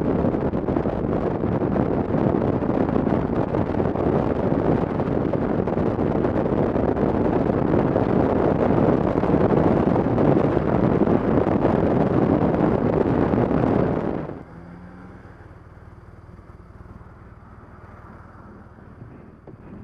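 Wind rushing over the on-board camera's microphone, with the road noise of a BMW R1200 motorcycle riding along a dirt road. It cuts off suddenly about fourteen seconds in to a much quieter background.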